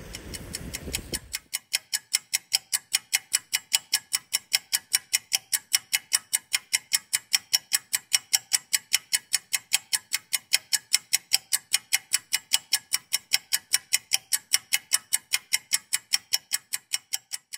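About a second and a half of wind noise on the microphone, then a rapid, perfectly even ticking like a clock sound effect that continues without change.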